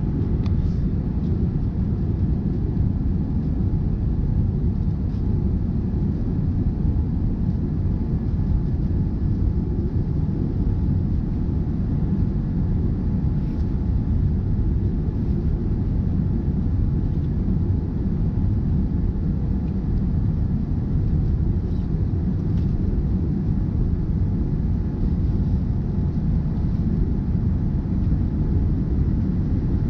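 Steady low rumble of a Boeing 787-9 airliner's engines and airflow heard from inside the passenger cabin during takeoff.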